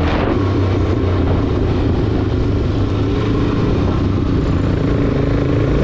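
Suzuki DR-Z400SM single-cylinder four-stroke engine running steadily while riding, with wind and road noise over the microphone.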